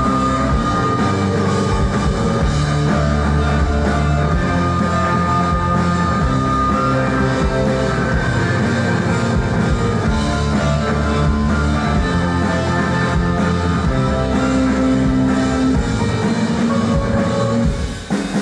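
Live rock band playing loudly: electric guitar and drum kit, with a violin, as heard from the audience; the sound dips briefly near the end.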